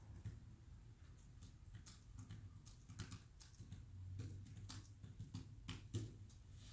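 Near silence: room tone with a faint low hum and scattered small clicks.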